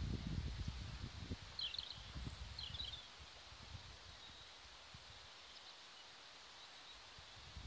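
Wind buffeting the microphone in low gusts for the first three seconds, then dying down to a faint outdoor hush. A small bird chirps in two quick bursts about two and three seconds in.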